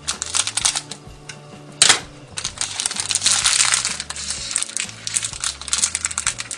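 Scissors snipping and working at a crinkly plastic blind-bag package, with sharp crackles and one loud snap about two seconds in, and a dense stretch of crinkling after it. Background music plays underneath.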